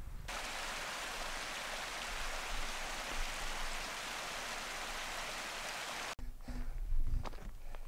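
Steady rush of a mountain stream running over stones, cutting off suddenly about six seconds in. It is followed by a few footsteps on grass and stones.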